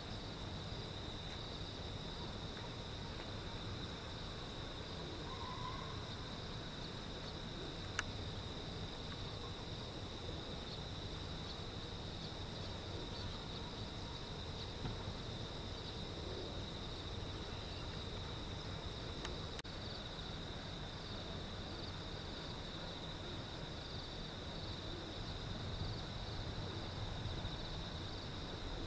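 Insects, crickets by the sound of it, chirping in a steady high chorus over a low background rumble, with one short click about eight seconds in.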